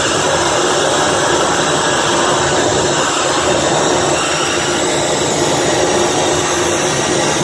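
Live harsh noise from tabletop electronics: a dense, loud, unbroken wall of distorted noise with a steady held tone running through it.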